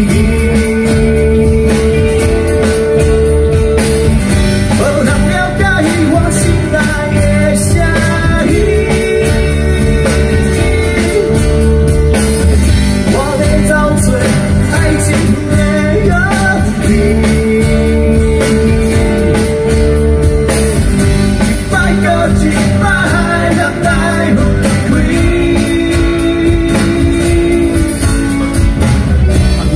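Live rock band playing through a PA: electric and acoustic guitars over bass and drums, in a passage without lyrics, with a melody of long held notes.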